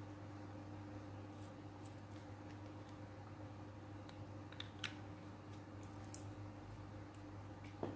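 Faint scattered clicks and soft rustles of hands rubbing a chicken's feathers, over a steady low hum; the sharpest click comes just before the end.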